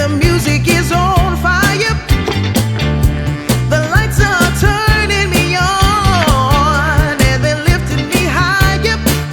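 Background pop music with a singing voice over a steady beat of bass and drums.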